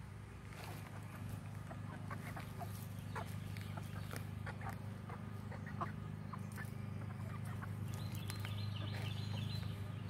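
Backyard hens clucking in short, scattered calls, with a quick run of higher notes near the end, over a steady low hum.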